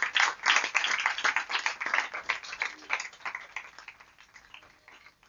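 Audience applauding at the end of a live song, the clapping thinning out and fading away toward the end.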